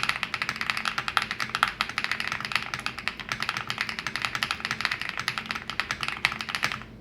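Fast continuous typing on a mechanical keyboard fitted with HMX Desert linear switches (POM stems, PA12 housings): a dense stream of keystroke clacks that stops abruptly near the end.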